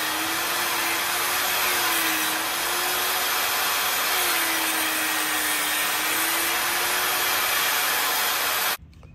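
Portable table saw running and ripping old reclaimed pine into narrow strips: a steady motor whine over loud cutting noise, the pitch sagging slightly a few times as the blade takes the load. The sound cuts off suddenly near the end.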